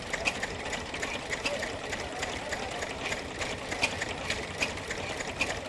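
Vintage single-cylinder stationary engine running with a steady mechanical clatter and a sharp beat about every 0.8 seconds.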